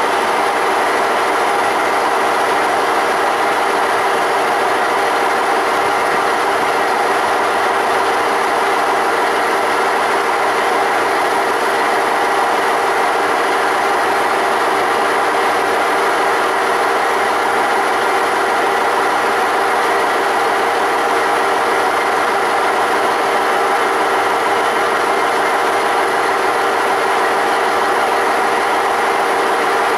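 KiHa 40 diesel railcar idling at a standstill, its underfloor diesel engine running at a steady, even pitch.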